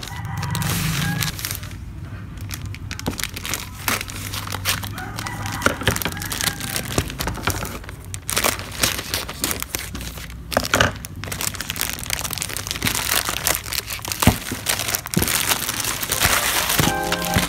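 A plastic courier mailer bag crinkling and rustling as hands handle it and open it, with dense crackling of the thin plastic throughout.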